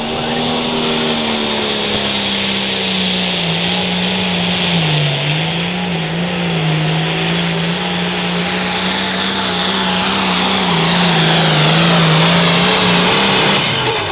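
Turbocharged diesel limited pro stock pulling tractor at full throttle under load during a pull. It is a loud, steady engine drone whose pitch sags slightly about five seconds in, with a high hiss building towards the end before the sound drops off suddenly.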